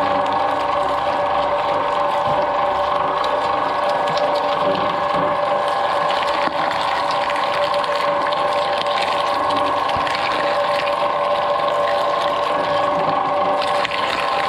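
Twin-shaft shredder running with a steady whine from its motor and gear drive, while green papaya tumbles on the turning cutter discs with light knocks and crunches.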